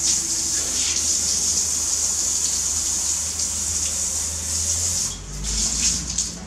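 Water spraying from a handheld shower head onto a wet baby monkey and the tiled wall, a steady hiss that breaks off briefly about five seconds in and then starts again.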